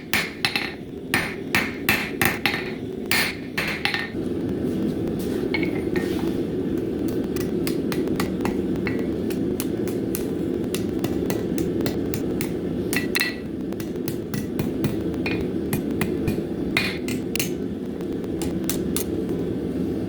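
Hammer blows on hot 1075 high-carbon steel on an anvil: a quick run of strikes for about four seconds, then only scattered single taps. Under the blows runs a steady low rushing noise, which grows louder about four seconds in.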